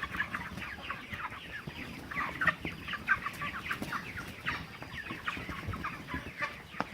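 A flock of broiler chickens clucking and chirping, many short calls overlapping continuously.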